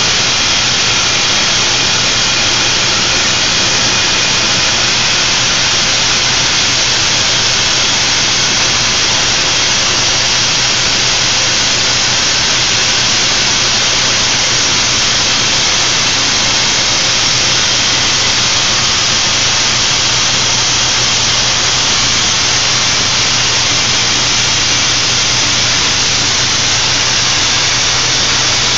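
Plasma cutting torch on a motorised orbital pipe-cutting carriage, cutting through a 10-inch steel pipe: a loud, steady hiss with a low hum underneath.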